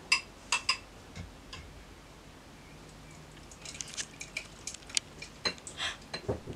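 A metal spoon clinks sharply three times against the blender jug. Then come a run of small ticks and scrapes as the spoon holds back chunks of ice while thick blended mango slush is poured from the jug into a glass.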